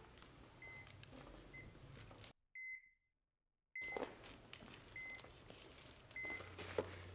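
Heart-rate monitor beeping steadily, a short high beep about once every second and a bit, at a low level. The sound drops out to near silence for about a second and a half just before the middle.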